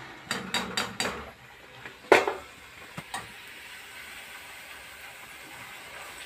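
Wire-mesh skimmer clinking against a steel pot several times in the first second, with one louder metal clank about two seconds in and two lighter clicks after it. Then hot oil sizzles steadily around a puri being deep-fried.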